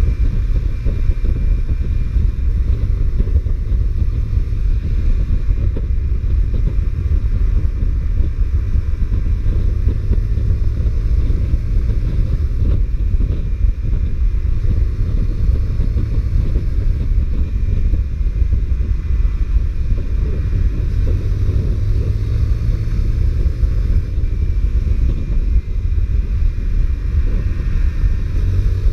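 Honda CBR125R's single-cylinder four-stroke engine running on a stock exhaust while riding, its pitch rising and falling with the throttle, under heavy wind rush on the microphone.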